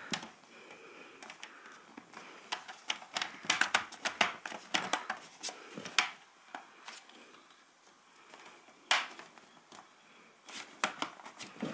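Irregular small plastic clicks and taps as a laptop's plastic bottom cover is worked and pressed back onto the chassis by hand, with fingers rubbing on the case between them.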